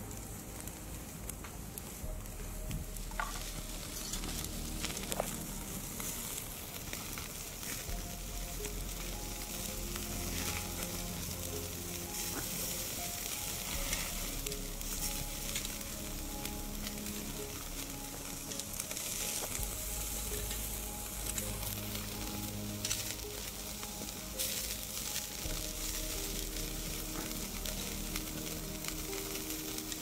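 Bone-in steaks sizzling steadily on a wire grill over an open wood fire, with scattered sharp crackles and pops. Soft background music with held notes runs underneath.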